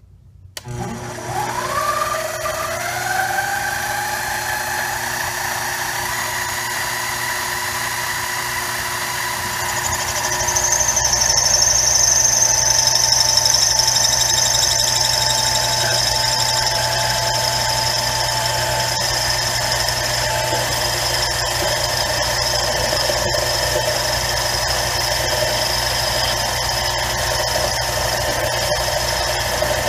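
7x10 mini lathe starting up, its motor and gears winding up in pitch, then running steadily with a whine. About ten seconds in a loud high squeal joins and carries on as the parting tool cuts into the spinning metal bar, throwing curled chips.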